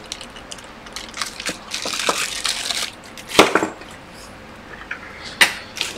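A clear plastic bag crinkling as it is handled, with a few sharp knocks, the loudest about three and a half seconds in.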